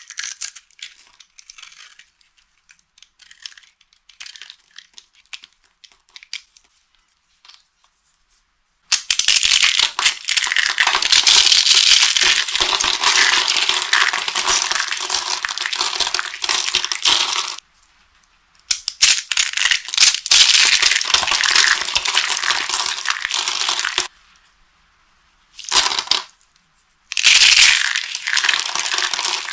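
Dry soap being crushed, crunching and crumbling in long dense spells separated by short pauses, after several seconds of only light scattered crackles.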